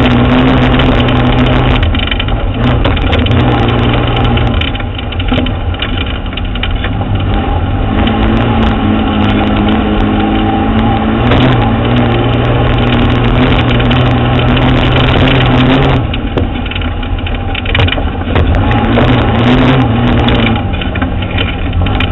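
Off-road truck's engine running under load as it drives over a sandy dirt track, its note dropping and rising several times as the speed changes, mixed with a steady rush of tyre and dirt noise, heard from close under the chassis by the front wheel.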